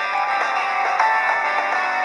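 A Samsung GT-C3592 ringtone playing: a melody of quick, separate notes with little bass.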